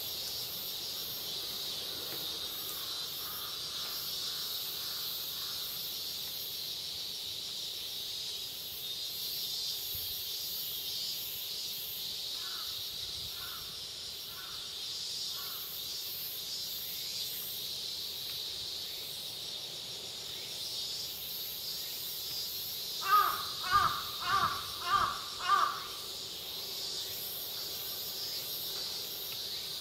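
A crow cawing five times in quick succession about three-quarters of the way through, over a steady high insect drone. Fainter calls come earlier.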